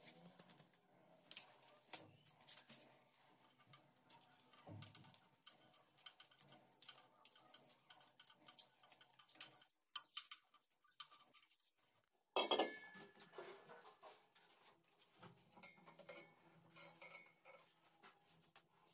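Quiet handling noises, small clicks and rustles, as insulating tape is wrapped around a cable. About twelve seconds in there is one sharp, much louder knock that rings briefly.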